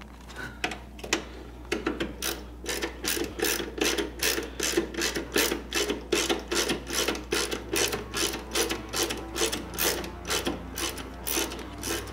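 Socket ratchet on a long extension clicking in a steady run, about three clicks a second, as it works a 10 mm bolt loose.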